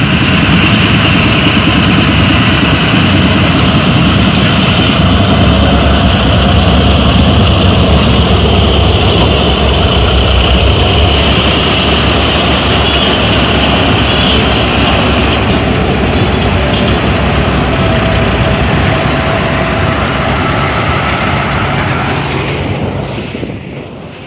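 Combine harvester running as it cuts paddy, a loud, steady engine and threshing drone that fades away near the end.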